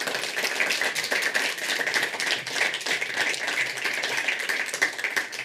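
Audience applauding: many hands clapping steadily, dropping away at the very end.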